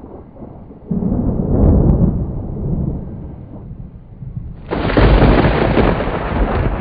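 Jet aircraft roar: a deep rumble that swells about a second in, then cuts in louder and brighter a little before five seconds in.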